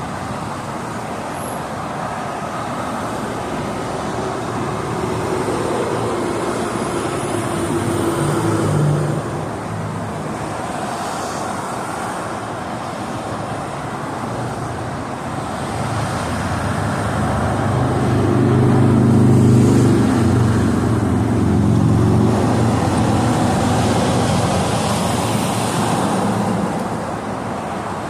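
Steady freeway traffic noise from a stream of passing vehicles. It swells twice as louder vehicles with low engine notes go by: one a little before the 9-second mark, and a bigger one that builds from about 16 seconds, is loudest around 19 to 20 seconds, and fades off over the next several seconds.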